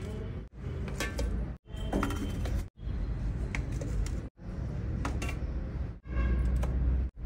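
Low rumble of room noise with a few clinks of steel bowls being set down on a large steel thali platter, broken by several abrupt cuts to silence.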